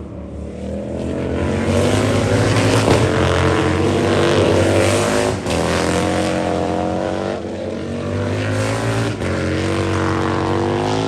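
Race motorcycles passing at full throttle, engine pitch climbing and dropping briefly at gear changes about halfway through and near the end.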